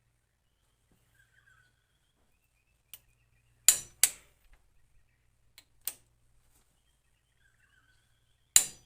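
Click-type torque wrench snapping over as cylinder head bolts reach the set torque on the final stage of 110: a few sharp clicks, two in quick succession about four seconds in, one near six seconds and another near the end.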